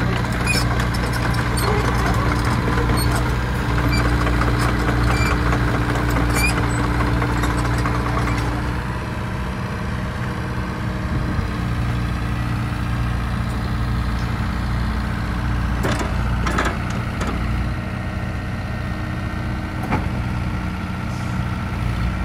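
IHI 80NS midi excavator's diesel engine running steadily, busier and a little louder for the first nine seconds or so, then settling, with a few short knocks in the last few seconds.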